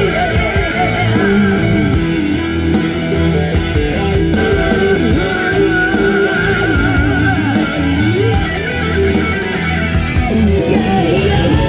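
Guitar-led music played loud through a Sony MHC-RV7 mini hi-fi system and its speakers, with strong bass.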